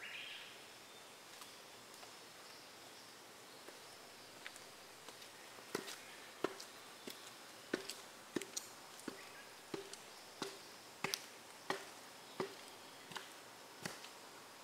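Hiking boots striking concrete steps as a hiker climbs, a regular knock about one and a half times a second that starts about six seconds in.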